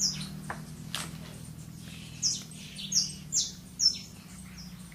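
Small bird chirping: a string of short, high chirps, each sliding quickly downward, one at the start and about five more in the second half, over a faint steady low hum.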